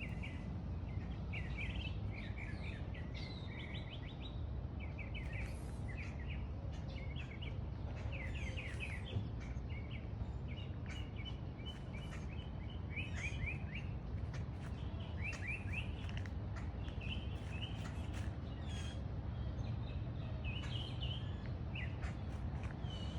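Several birds chirping and singing in short, quick repeated phrases over a steady low background rumble.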